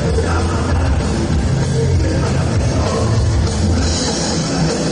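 Loud rock music with drums and heavy bass, played at a dance by a sonidero sound system.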